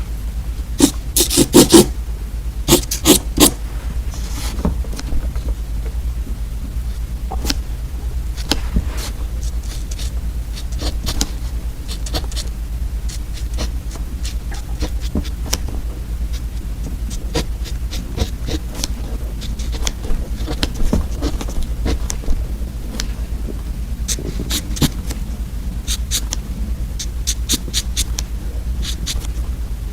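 Close-miked ASMR crunching and crinkling of edible candy pens and edible paper: sharp crisp clicks in quick clusters near the start and again towards the end, scattered single ones between, over a steady low hum.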